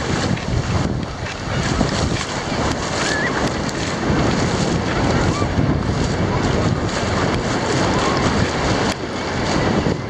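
Ocean surf washing and foaming in shallow water around the camera, with wind buffeting the microphone.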